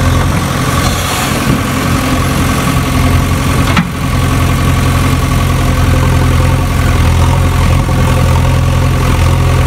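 Heavy engine idling steadily with a low, even sound, like a tractor or backhoe idle. There is a single sharp click about four seconds in.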